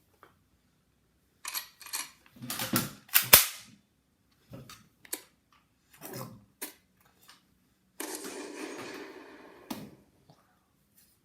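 A series of sharp bangs like gunshots, several close together with the loudest about three seconds in, then scattered lighter clicks, and near the end a hissing rush of noise that ends in one more bang.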